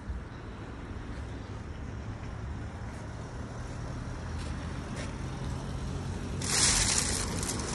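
Street traffic: vehicles on the road make a steady low rumble, and about six and a half seconds in a loud hissing rush rises and lasts over a second.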